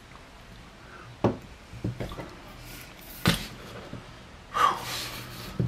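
A long screw-together metal survival stick handled on a wooden table top: a few separate knocks, the loudest a little past three seconds in, then a short breathy rustle near the end.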